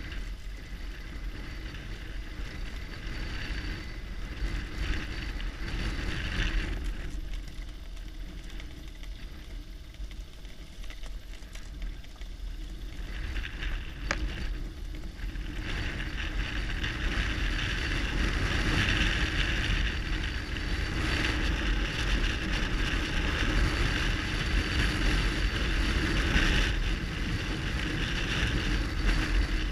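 BMW R1200GS Adventure's boxer-twin engine running on a dirt track, with wind noise on the microphone. It drops quieter for several seconds partway through, then grows louder again from about halfway on.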